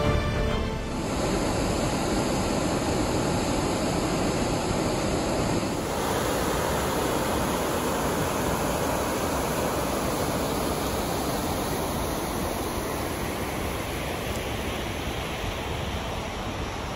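Steady rush of a waterfall and white-water cascade, Vernal Fall pouring over its granite lip and the cascade tumbling into Emerald Pool, with a slight change in the sound about six seconds in. Background music fades out in the first second.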